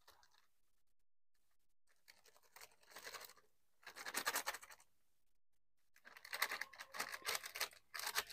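Plastic flour packet rustling and flour pouring out onto a steel dish, a dry scratchy hiss. It comes in two short bursts from about two and a half seconds in, then runs more steadily near the end.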